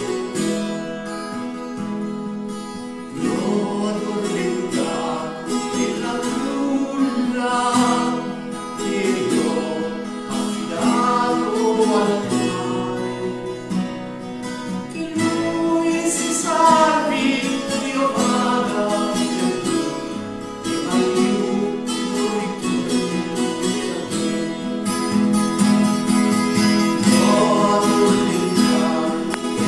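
Live instrumental duet of bouzouki and acoustic guitar playing a slow tune. A steady low drone runs under a melody that slides between notes.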